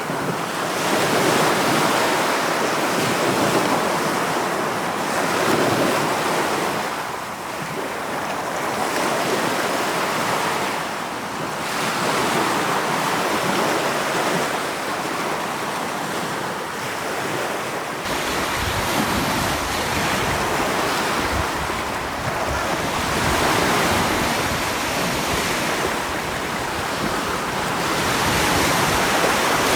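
Sea waves breaking and washing on a shore, a continuous surf with swells every few seconds. About two-thirds of the way in, a deeper low rumble joins the surf.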